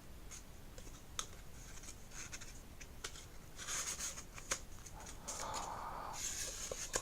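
Package being opened by hand: faint scratching and rustling of cardboard and packaging with scattered small clicks, busier in the second half.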